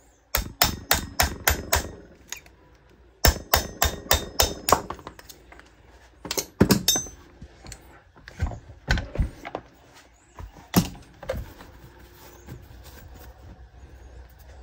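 Light metal-on-metal hammer taps on a punch, in two quick runs of about five or six taps in the first five seconds, then a few scattered single knocks: the piston pin being driven out to free the piston from a two-stroke chainsaw engine.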